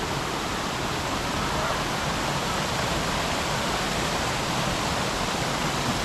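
Waterfall pouring into a plunge pool, a steady, even rush of water.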